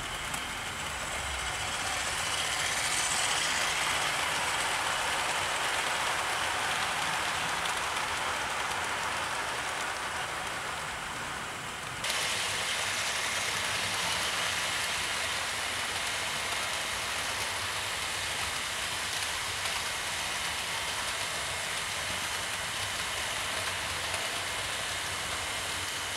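OO gauge model trains running on the layout's track, a steady running noise of wheels on rail that shifts abruptly about twelve seconds in.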